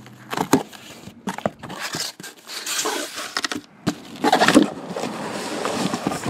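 Packaging and card boxes being handled on a table: irregular crinkling and rustling with scrapes and sharp knocks, loudest a little past the middle.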